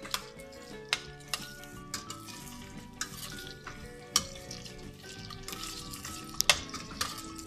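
Metal spoon stirring cubed potatoes frying in oil in a stainless steel pot: the potatoes sizzle, and the spoon clinks sharply against the pot about once a second.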